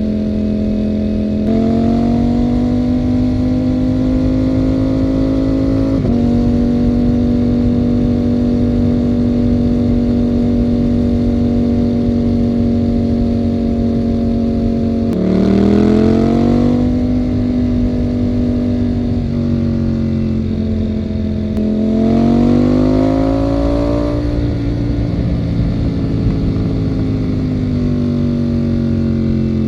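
Ducati Panigale V4 motorcycle's V4 engine running at a steady cruise. Its pitch rises as it accelerates about halfway through and again about three quarters through, each time easing back down.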